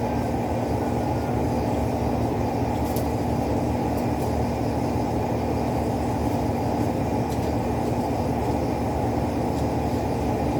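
Steady low mechanical hum and rumble of running machinery or ventilation, with a few faint light clicks.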